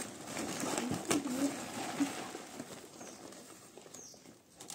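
A dove cooing, a few short low hoots about a second in, over the rustle and crinkle of a plastic sack being emptied of harvested black pepper spikes into a plastic basin. The rustling dies down toward the end.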